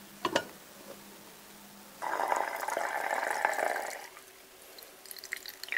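Dark cranberry infusion poured from a glass jar through a metal funnel strainer into another glass jar, a steady splashing pour lasting about two seconds. A short knock comes about a quarter second in, and a few faint drips near the end.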